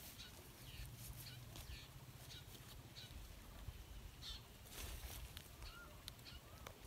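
Faint outdoor ambience with scattered short, distant bird calls and chirps over a low rumble.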